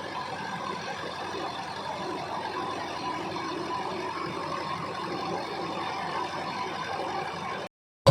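A steady engine hum that cuts off abruptly near the end.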